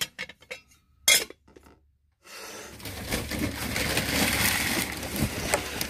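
Forged aluminum lid clinking against its casserole dish and glass Pyrex insert: two sharp clinks within the first second or so, the second the louder. From about two seconds in, a steady noisy rush with a low hum takes over.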